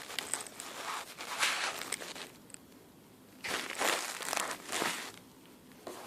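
A retail keyboard box and its packaging being handled, crinkling and rustling in two spells of about two seconds each, with a quiet pause between.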